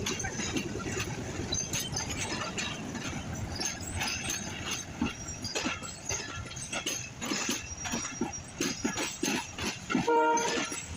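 Railway train noise: continual clanking, clicking and rattling over a low rumble, with a brief pitched tone about ten seconds in that is the loudest moment.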